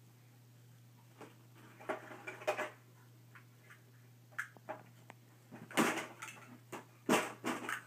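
Large plastic toy building blocks knocking and clattering together, with a clear plastic bag rustling, as babies handle them; a few separate clacks, the loudest about six and seven seconds in.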